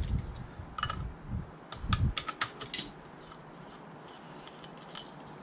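Light clicking and clatter of small metal parts and tools being handled, with a cluster of sharp ticks and a couple of dull knocks during the first three seconds.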